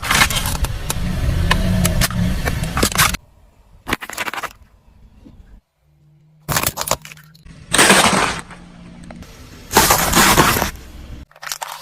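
Hard plastic toys cracking and crunching under a car's tyre: a long run of snapping for about three seconds, then shorter bursts of breaking later on, over the car's low engine hum.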